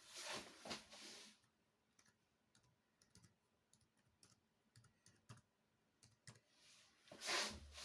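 Scattered soft clicks of a laptop being operated, with two louder bursts of hiss-like noise, one at the start and a louder one near the end.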